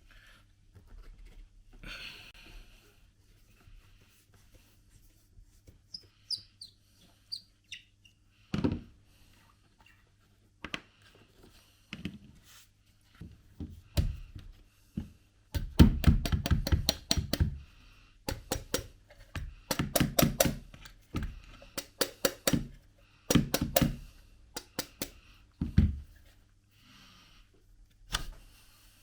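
Irregular knocks and clicks from working on rifle parts by hand, with several runs of fast, rattling clicks in the second half.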